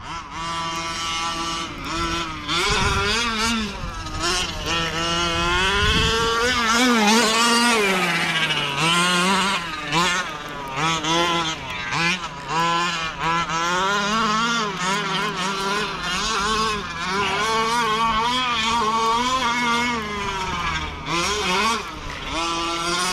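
Small two-stroke petrol engine of a 1/5-scale gas RC car running hard, its pitch rising and falling over and over as the throttle is opened and closed while the car is driven.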